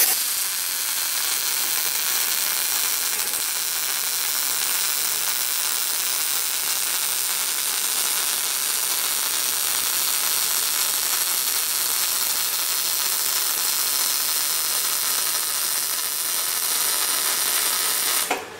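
Electric welding arc hissing steadily as the joint of a band saw blade is welded. It starts sharply and cuts off just before the end.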